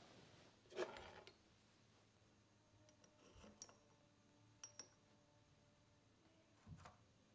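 Faint handling sounds: metal tongs picked up and dipped into a small glass jar, giving a few sparse light clicks and clinks of metal on glass. The loudest comes about a second in.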